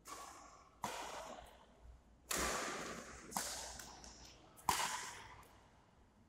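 Badminton rackets striking a shuttlecock in a doubles rally: five sharp hits, roughly a second apart, each with a long echo tail in a large hall.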